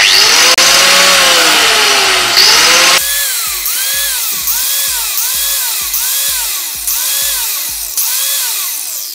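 Angle grinder motor switched on and off repeatedly. First it makes one run of about two seconds, spinning up and winding down. Then it gives a quick string of short bursts, each spinning up and dropping back, under two a second. It comes on every time the switch is pressed: its intermittent cut-out is cured by re-joining a split wire in the power cord.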